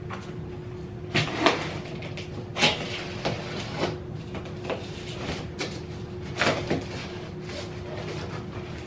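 Cardboard shipping box being slit open with a knife and its flaps pulled apart by hand: a series of short, irregular scraping, ripping and knocking sounds.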